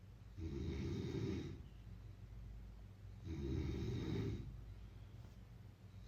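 A person snoring: two snores about a second long, roughly three seconds apart, with a third starting at the very end, and quiet breathing between them.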